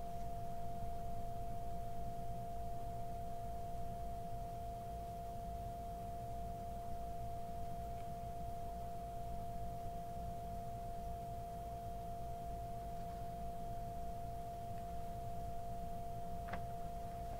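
A steady background whine: one constant tone with fainter tones just below it, over a low hum, with a faint click near the end.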